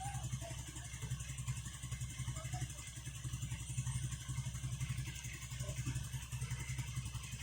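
An engine running steadily at an even speed, a low pulsing drone with no change in pitch.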